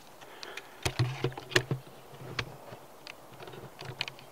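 Handling noise: a cluster of sharp knocks and clicks about a second in and a few more near the end, over a faint low buzz.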